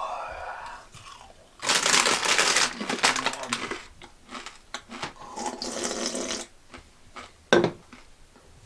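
Tortilla chips crunched and chewed noisily, then liquid slurped or gulped from a drink can. There is a short sharp knock near the end.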